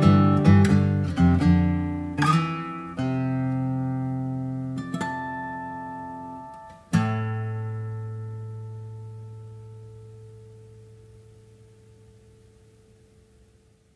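Taylor 310 steel-string acoustic guitar played fingerstyle: a run of sharply plucked chords and notes, then a last chord struck about seven seconds in and left to ring, fading slowly away to silence.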